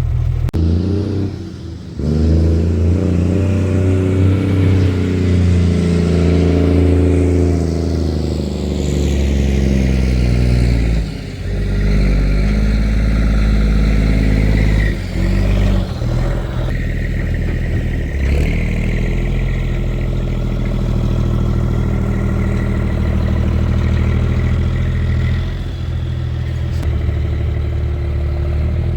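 Cummins M11 diesel in an International 8100 dump truck pulling away and accelerating through the gears: the engine pitch climbs, then drops at a gear change about 2 seconds in and again about 11 seconds in, then settles into steadier running.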